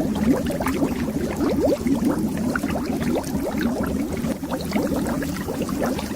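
Bubbles rising underwater in a continuous dense stream, each bubble a short blip gliding upward in pitch, over a steady low rumble.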